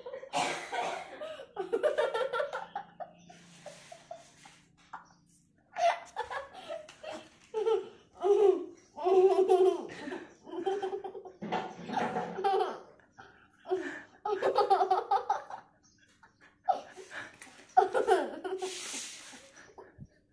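A young boy laughing in repeated bursts, his mouth full of biscuit.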